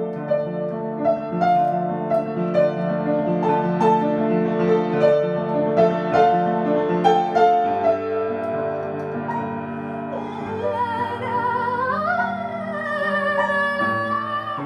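Piano playing a slow, gentle piece, with struck notes over sustained lower tones. About ten seconds in, a held melody line with wide vibrato comes to the front and swells upward.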